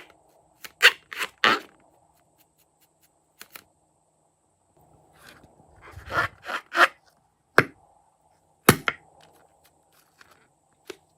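A series of short, sharp clicks and scrapes from objects being handled. One cluster comes about a second in and another around six to seven seconds in, with two single sharp clicks near the end.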